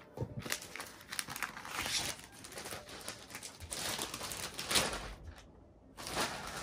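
Plastic poly mailer bag crinkling and rustling as it is handled and opened by hand, with a short lull a little before the end.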